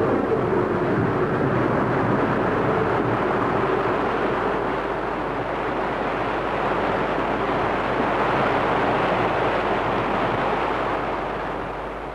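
Steady rushing roar of wind and sea aboard a sailing ship in heavy weather, easing off near the end.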